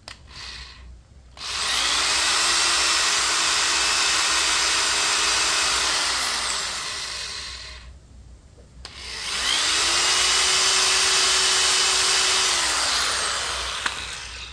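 Corded electric drill boring two pilot holes into a wooden board. Each time, the motor spins up with a rising whine, runs steadily under load for several seconds, then winds down with a falling whine. The first run lasts about five seconds and the second, after a short pause, about four.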